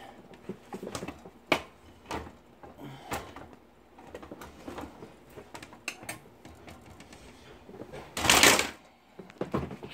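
Scattered light knocks and clicks of a toddler handling small objects on a wooden side table, with one louder rustling rush about eight seconds in.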